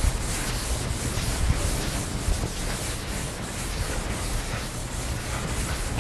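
A felt eraser being rubbed in repeated strokes across a chalkboard, wiping off chalk writing.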